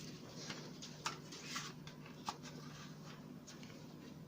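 Faint handling sounds as a keyboard wrist rest is taken out of its packaging: a few light clicks and soft rustling.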